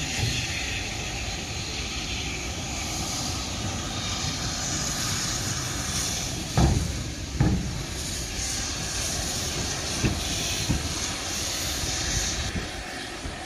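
Steam locomotive hissing steam steadily, with two heavy thuds a little after halfway and two fainter ones later. The hiss eases near the end.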